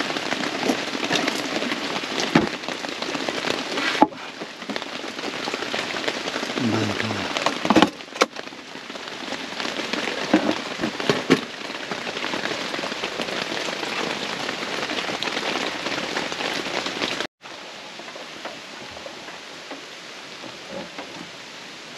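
Heavy rain pelting down, a dense patter with scattered sharper hits. It drops abruptly to a quieter, steady rain about seventeen seconds in.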